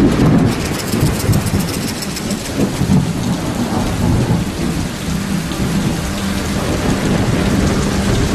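Thunderstorm: a loud rumble of thunder at the start, then steady heavy rain, with drops splashing into puddles.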